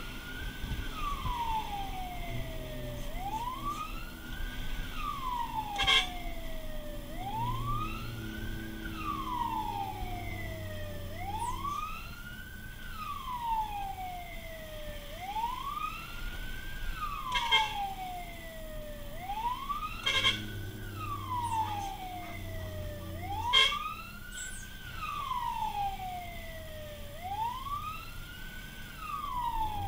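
Fire truck's siren wailing, each cycle rising quickly and falling slowly, about once every three and a half seconds, heard from inside the cab over the truck's engine. Four short sharp blips cut through the wail.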